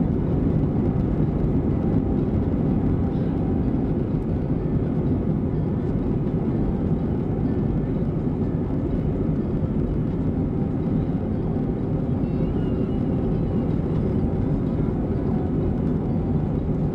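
Jet airliner cabin noise while taxiing: a steady low engine hum and rumble heard from a window seat.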